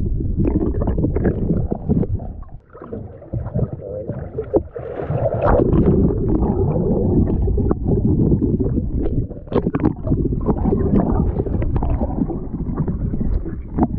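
Muffled underwater water noise picked up by a submerged camera: rushing and gurgling bubbles with frequent short pops and knocks as a hooked salmon thrashes just below the surface. There is a brief lull about two and a half seconds in.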